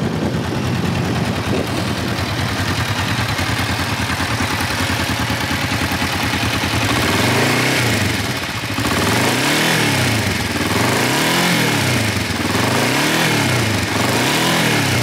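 The parallel-twin engine of a 2006 Kawasaki Vulcan 500 motorcycle through its stock exhaust, idling steadily, then revved several times from about halfway in, each blip of the throttle rising and falling back to idle.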